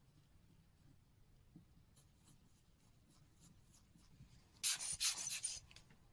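Small watchmaker's tools handling a watch movement: a run of faint light ticks, then about a second of loud scratchy rubbing near the end.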